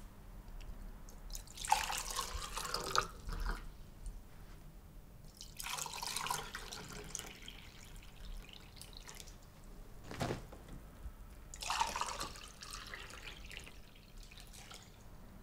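Water poured from a pitcher into drinking glasses, three pours of about two seconds each. A single light knock comes between the second and third pours.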